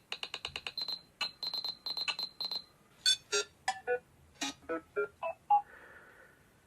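Electronic ringtone tones: short synthetic bleeps and blips, a quick run of about ten a second at first, then scattered single tones, with a faint hazy tone near the end.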